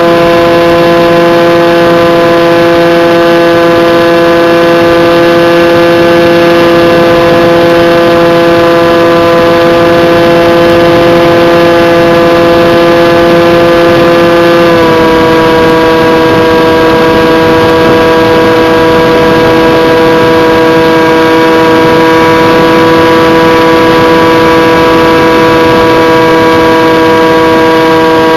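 Electric motor and propeller of a Bixler RC plane running at steady throttle: a loud, continuous whine that steps slightly lower in pitch about halfway through.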